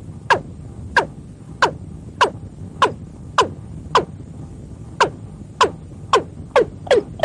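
Watercock calling: a series of sharp notes, each sliding steeply down in pitch, about one every 0.6 seconds, with a short pause about four seconds in, then quickening near the end. A low steady rumble runs underneath.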